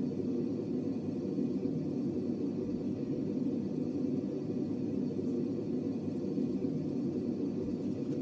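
A steady low rumbling noise that runs on without a break or change.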